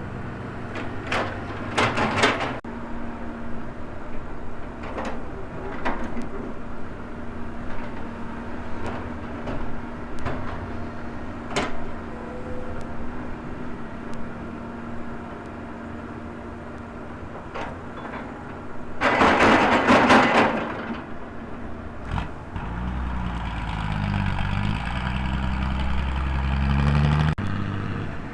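Volvo hydraulic excavator with its diesel engine running steadily. Sharp metallic clanks come from the bucket and arm working, and a loud scraping rush lasts about two seconds, two-thirds of the way in. Near the end the engine works harder under hydraulic load.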